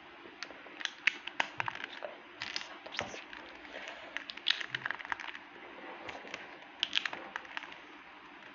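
Irregular series of small clicks and taps, several a second at uneven spacing.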